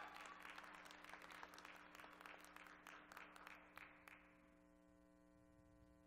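Audience applauding in scattered claps that thin out and die away about four seconds in. A faint steady electrical hum remains underneath.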